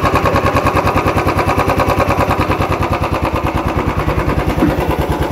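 Royal Enfield UC single-cylinder engine running at idle with a fast, even rhythmic beat and a tappet ticking. The mechanic puts the tick down to a loose rocker from a failed hydraulic tappet that has leaked its oil.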